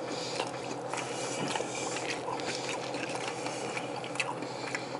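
A person chewing a bite of sausage patty with truffle zest: scattered small wet mouth clicks over a steady low background hum.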